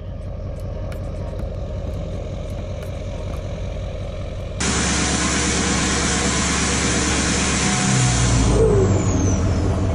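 A motor vehicle's engine running with a steady low rumble; about halfway through it cuts abruptly to a louder, hissier engine sound.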